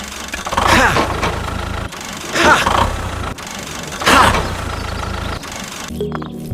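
An engine running steadily, with three short surges about a second and a half apart, each sweeping up and down in pitch. Music starts near the end.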